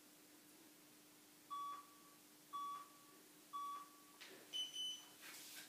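Workout interval timer counting down: three short, identical beeps about a second apart, then one higher, longer beep about four and a half seconds in that marks the end of the exercise interval. A faint steady hum runs underneath.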